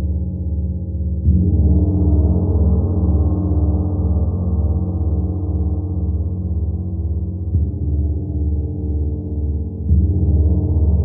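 Koan Gong Lemurian gong struck with a felt mallet about a second in and again near the end, ringing on in a dense low hum between the strokes. The hum pulses slowly and evenly, like a heartbeat.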